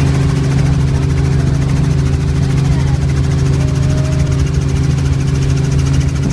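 Helicopter engine and rotor running with a steady, even drone of low tones, heard from inside the cabin as it lifts off and climbs.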